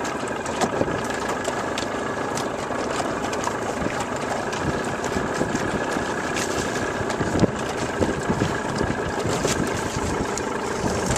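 Small boat's outboard motor idling steadily, with scattered light clicks and knocks as the crab-pot line is hauled in hand over hand across the aluminum hull.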